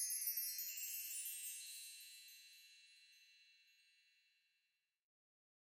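A wind chime-like shimmer of many high, bright tinkling tones that rings out and fades away over about five seconds.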